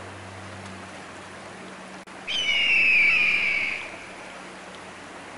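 One long, clear whistled note, falling slightly in pitch and lasting about a second and a half, over a steady background hiss and low hum.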